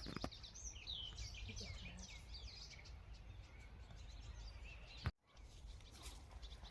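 Faint birdsong outdoors: a flurry of quick high chirps in the first couple of seconds, over a steady low background rumble. A brief click and dropout come about five seconds in.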